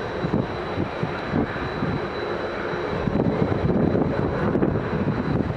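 Boeing B-17G Flying Fortress's four Wright R-1820 Cyclone radial engines running in flight, growing louder about three seconds in as the bomber comes closer.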